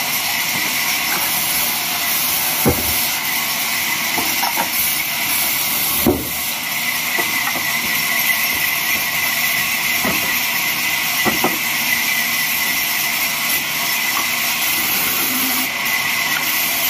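Large vertical bandsaw running and cutting through logs fed by hand: a steady high hiss, with a few short knocks, the sharpest about three and six seconds in.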